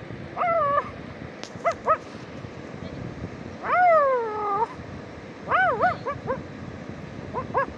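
German Shepherd whining and yelping while swimming: short high whines, one long falling whine midway, then a quick run of short yelps.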